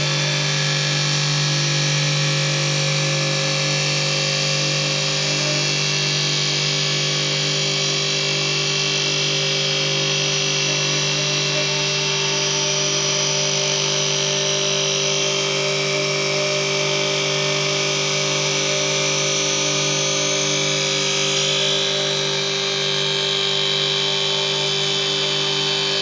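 CNC lathe running steadily, its motor and spindle giving a constant low hum with several high-pitched whines over it; the high whine changes pitch about fifteen seconds in and again a little past twenty.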